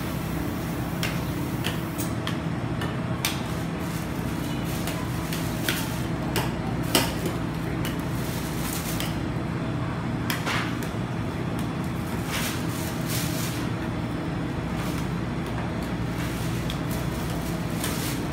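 Metal spatulas scraping, tapping and clicking on the frozen steel plate of a rolled-ice-cream cold pan as the ice cream is spread and scored into a thin sheet. The clicks are scattered and irregular, a dozen or so, the sharpest about seven seconds in, over a steady low machine hum.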